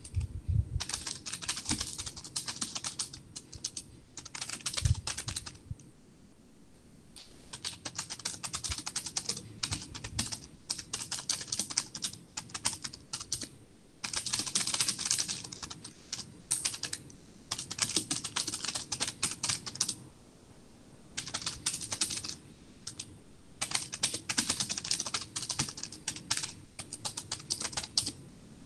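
Typing on a computer keyboard in rapid runs of a few seconds each, broken by short pauses, with a low thud near the start and another about five seconds in.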